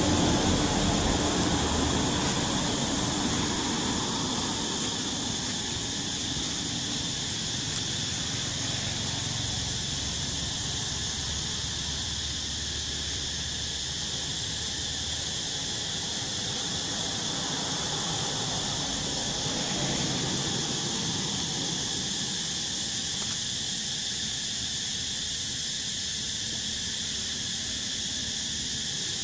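Steady, high-pitched drone of forest insects, unchanging throughout. A low rumble underneath fades out over the first few seconds.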